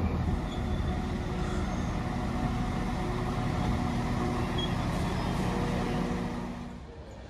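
Northern Class 195 diesel multiple unit arriving at a station platform, its diesel engines running with a steady hum over wheel and rail noise. The sound fades shortly before the end.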